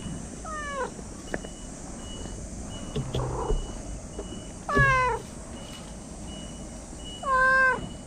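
Stray cat meowing three times while being petted, short calls about half a second in, near the middle and near the end, the last two the loudest. A faint electronic beep repeats about twice a second behind them, like a vehicle's reversing alarm.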